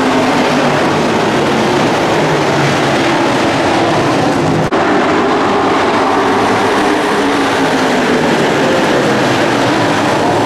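A field of dirt-track racing trucks running at speed, their engines making a loud, steady, dense roar as the pack goes around the oval. The sound cuts out for an instant about halfway.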